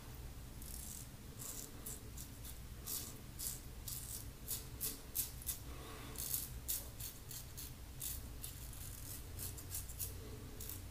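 Safety razor with a Maggard V3 head and a Personna 74 blade scraping lathered stubble on the upper lip, a crisp rasp with each short stroke, about two a second. The blade, on its 49th shave, is worn and pulls roughly.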